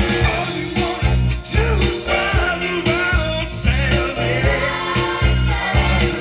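Background music: a song with a singer over a steady beat.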